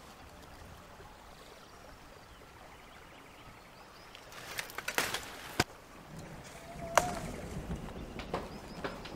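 Faint outdoor background, then rustling and several sharp snaps and clicks as a bunch of grapes is picked from the vine. A single sharp click follows, then irregular footsteps on steps.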